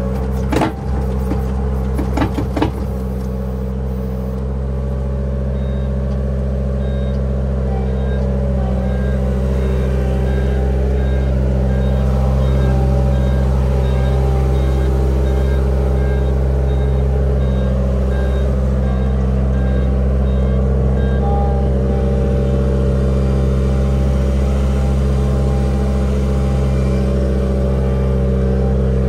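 Avant 423 compact loader's diesel engine running steadily under way, with a few knocks in the first seconds. A faint high beeping repeats about twice a second through the middle stretch.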